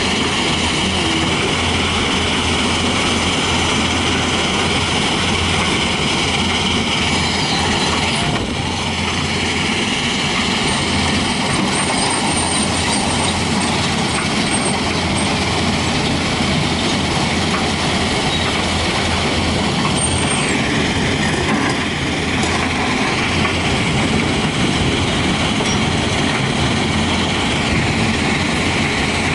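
Tata Hitachi 200 crawler excavator's diesel engine running steadily as the machine travels on its steel tracks over gravel.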